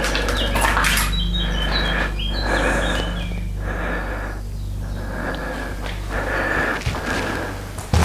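Slow footsteps on an old floor over a steady low hum, with a few short bird chirps in the first half.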